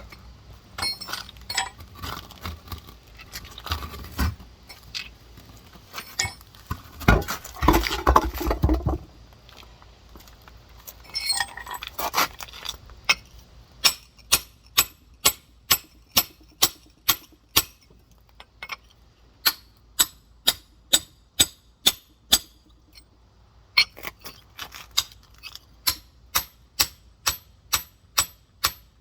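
Rock hammer striking a large geode's hard shell with sharp metal-on-stone clinks. The strikes are irregular at first, with a louder rough scraping stretch about a quarter of the way in, then settle into steady blows about two a second from about halfway through.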